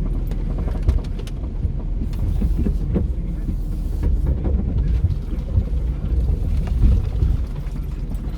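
Four-wheel drive running slowly over a rough off-road track: a steady low engine and drivetrain rumble, with short knocks and jolts from the vehicle body every second or two.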